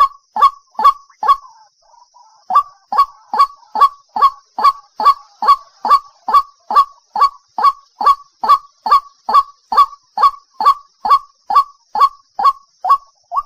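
White-breasted waterhen giving its repeated 'kuak kuak' call as a trapping lure: short, loud, downward-sliding notes at about two to three a second. The calling breaks off briefly about a second and a half in, then resumes.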